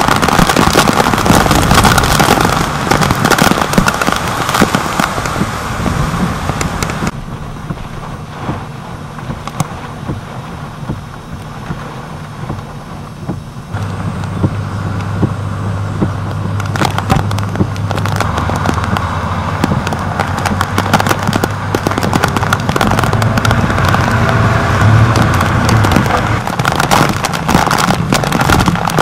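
Rain and wind-blown drops striking a waterproof camera housing in a dense, loud rattle of clicks, over storm rain. About halfway through, a delivery truck's engine adds a low steady idling hum for some ten seconds.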